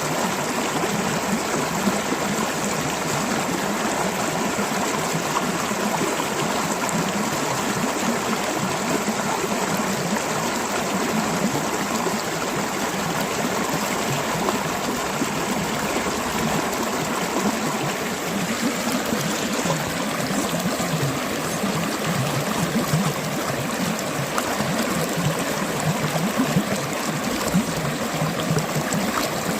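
Mountain stream flowing and gurgling steadily, with small splashes and trickles.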